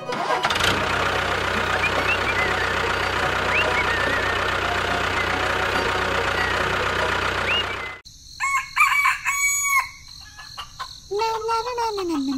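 A steady noisy hum with a few short high chirps, which cuts off suddenly about two-thirds of the way through. Then come a few loud animal calls: short high ones first, and near the end a lower call that rises and falls.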